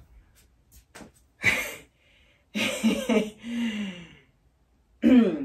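A woman's breathy gasps and sighs of exertion from lifting heavy furniture, with a short low groan in the middle and another brief gasp near the end, separated by pauses. Two faint taps about a second in.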